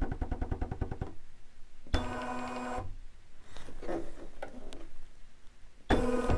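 Bernina B770 embroidery module moving the clamp hoop to the design's corner positions. A quick rattle of clicks until about a second in, then short motor whirs around two seconds in and again near the end, with a softer one in between.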